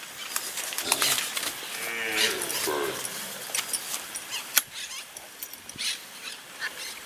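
Newborn zebu calf bawling twice in the first few seconds as it is held down on the ground, followed by small clicks and rustles of handling.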